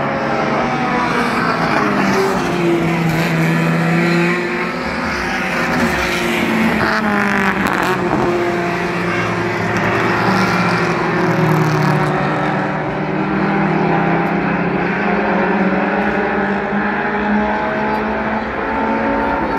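A pack of Mini Stock race cars' four-cylinder engines running at racing speed, several at once, their pitch rising and falling again and again as the cars lift for the turns, accelerate down the straights and pass by.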